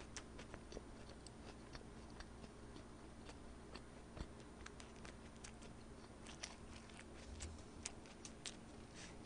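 Faint, irregular clicks of a person chewing food with her mouth closed.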